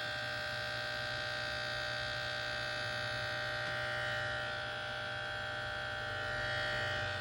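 Asus G731GV gaming laptop's cooling fans running with a steady whine of several high tones over a low hum, rising a little near the end. The owner treats this fan noise as a fault.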